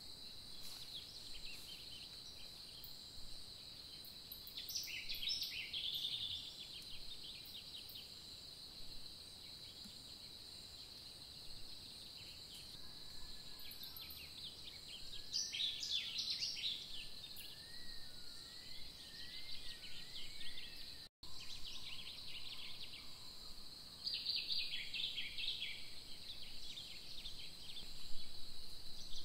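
Outdoor chorus of a steady high-pitched insect drone, with three bursts of bird chirping and a run of short whistled bird notes in between.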